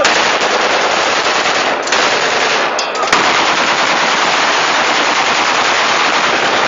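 Celebratory gunfire: rifles fired into the air in a rapid, unbroken string of shots, dipping only briefly about three seconds in.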